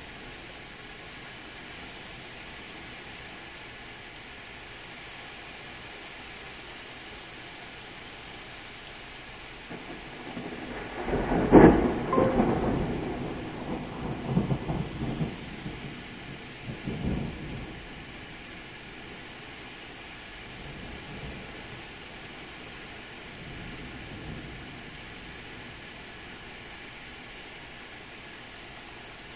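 Steady rain falling throughout. About twelve seconds in, a sudden loud clap of thunder gives way to rumbling that rolls on and dies away over about six seconds.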